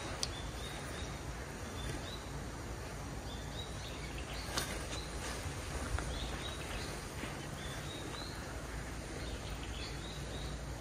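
Pond-side ambience: a steady low background noise with small birds giving short chirps now and then, and a few faint clicks.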